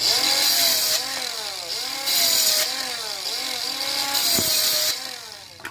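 Homemade cordless mini circular saw driven by an RS 895 DC motor, running and cutting. The motor's whine sags in pitch and recovers again and again, with three stretches of louder, hissing cutting noise.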